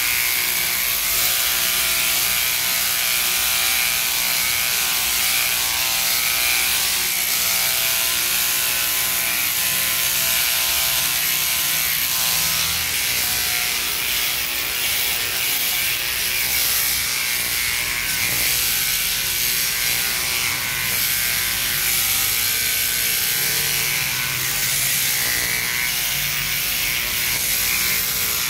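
Sheep-shearing machine running steadily, its handpiece on a flexible drive arm clipping through a sheep's fleece with a continuous buzzing whir.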